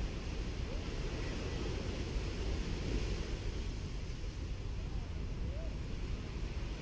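Gentle sea waves washing steadily on a sandy beach, with a heavy low rumble of wind on the microphone.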